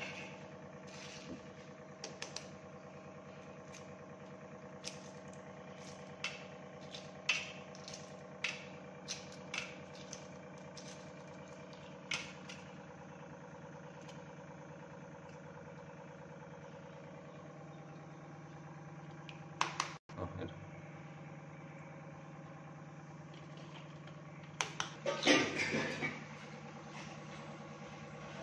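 Hard-boiled eggs being cracked and peeled by hand, with scattered sharp clicks of eggshell breaking and shell pieces dropping onto a steel plate, and a louder clatter near the end. A steady mechanical hum runs underneath throughout.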